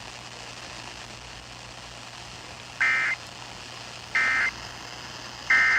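Emergency Alert System end-of-message signal: three short bursts of warbling SAME data tones, about a second apart, over a steady hiss, marking the end of the alert.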